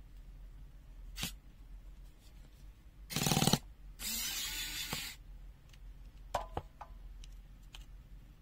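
Small electric screwdriver running in two short bursts, about half a second and then about a second long, backing out small screws from a plastic meter casing, with a click before and a few sharp clicks after.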